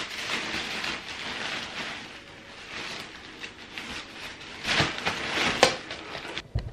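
Rustling of a collapsible fabric cat tunnel being unfolded by hand, with louder rustles about five seconds in as the tunnel stretches out.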